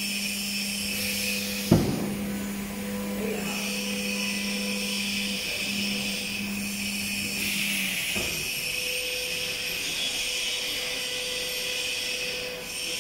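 REU1326ATC CNC router running, its spindle and gantry drives giving a steady high whine over a low hum. A single sharp knock comes about two seconds in, and the low hum stops about eight seconds in.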